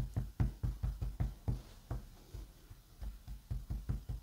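An ink pad dabbed repeatedly onto a wooden stamp to ink it: dull taps about three or four a second, fainter for a moment in the middle.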